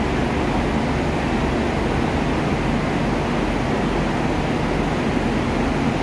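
Steady, even running noise of the Aru Ressha diesel railcar standing at the platform: a constant low hum and hiss from the idling train, with no changes.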